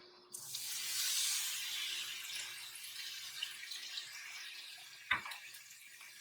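Water running from a tap into a sink, a steady hiss that starts just after the beginning and slowly eases off. A single sharp knock about five seconds in.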